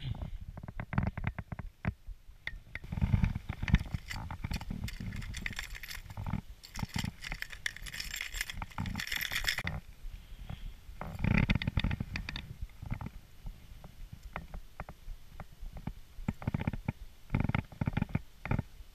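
Close handling noise: irregular clicks, taps and rustles as hands change a fishing lure on the line, with low rumbling thumps of movement against the camera and a brief hiss about nine seconds in.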